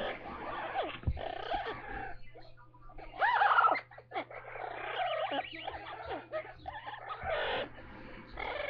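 Pet Amazon parrots chattering and calling, with a louder run of rising and falling calls about three seconds in.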